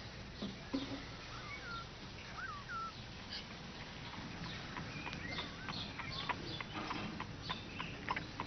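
A few faint bird chirps, then a run of light, irregular clicks and taps from a cat pawing at the latch of a puzzle box.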